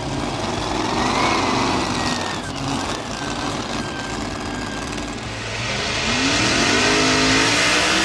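Modified pulling tractor engines running at full power under load during a pull. About six seconds in, a louder set of engines on a multi-engine modified pulling tractor revs up, its pitch rising steeply as it launches.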